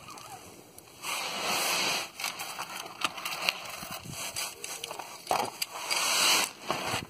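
Hand wrench tightening a tapered drain plug in a WWII Jeep's cast-iron front differential: several short bursts of scraping and clicking, the loudest about a second in and near the end.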